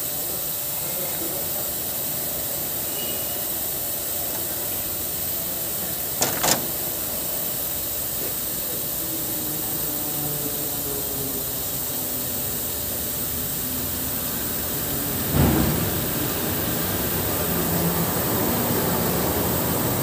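Steady hiss with two sharp metallic clicks about six seconds in and a heavier clunk about fifteen seconds in, from hands-on work on a truck's gear-shift air valve.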